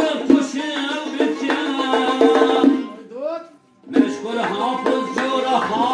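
Tar, a long-necked lute with a skin-covered double bowl, plucked in quick, rhythmic strokes as a man sings, with a piano accordion joining in. The music breaks off for about a second around three seconds in, then starts again.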